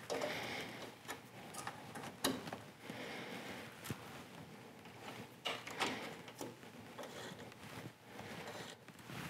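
Faint, irregular clicks and light metal taps of a 10 mm wrench on a snowmobile's rear track-adjuster bolt. The bolt is being tightened about half a turn to shift the track over and centre it on the rails.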